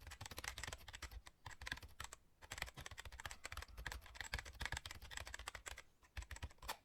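Raindrops ticking on a hard surface: a quiet, dense patter of irregular small clicks.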